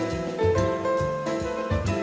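Small acoustic jazz group playing, with a double bass line moving under piano notes and light drum-kit strokes.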